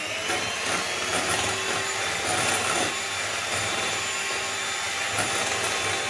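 Electric mixer running steadily at speed, its beaters whisking eggs, sugar and milk into cake batter.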